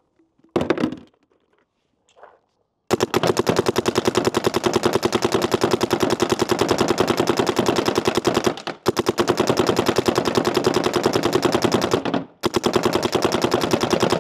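A short rattle about half a second in, then a DLX Luxe IDOL electronic paintball marker on compressed air firing long, rapid, even strings of shots from about three seconds in, broken twice by brief pauses.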